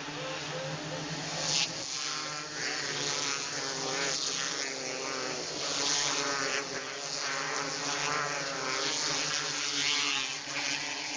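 Several 270 micro sprint racing engines running on a dirt oval, their pitch rising and falling as they accelerate and lift through the turns.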